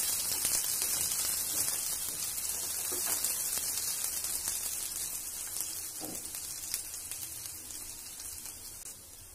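Sliced onions and chana dal sizzling in hot oil in a nonstick kadai, a fine crackle with a few soft scrapes from the spatula stirring them. The sizzle fades gradually.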